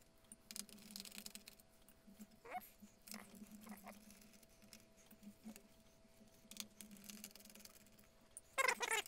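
Faint scattered clicks and light tapping of a small screwdriver and fingers working at screws and parts on a laptop's plastic underside, over a low steady hum, with a few short squeaks. Near the end a louder wavering high-pitched sound comes in.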